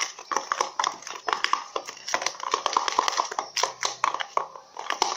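Glue slime mixture being stirred in a tub, giving a rapid, irregular run of sticky clicks and taps that pauses briefly about four seconds in.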